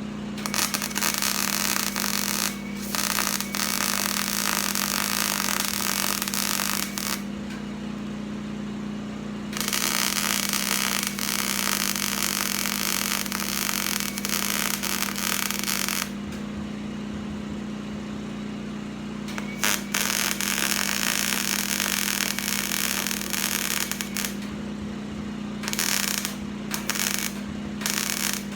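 Arc welding on thin 18-gauge sheet steel: a continuous crackling hiss in three runs of about six seconds each with short pauses between, then several brief tack welds near the end. A steady low hum lies underneath.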